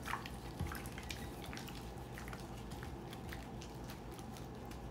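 Gloved hand mixing raw chicken strips in a bowl: soft, wet squishing with small irregular clicks that thin out in the last second or so, over a steady low room hum.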